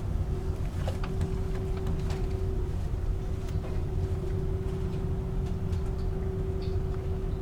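Steady low rumble of a ferry's engines and machinery heard on board, with a constant droning hum over it and a few faint ticks and rattles.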